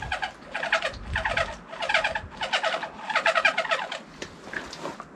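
A bottle tipped up for a long drink: gulps and glugging of liquid, about two a second, stopping about four seconds in.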